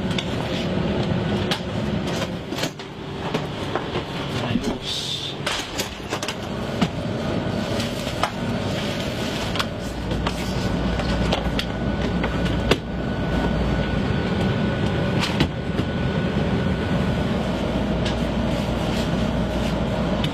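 A train at a station platform: a steady mechanical hum with scattered clicks and knocks, and a deeper low hum setting in about halfway through.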